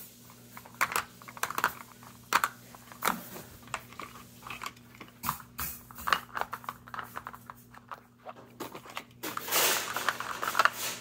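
Hard plastic clicking and tapping as the red flip lids of a dog treat-puzzle feeder are snapped shut and bone-shaped blocks set into it: irregular clicks throughout, with a brief rustle near the end.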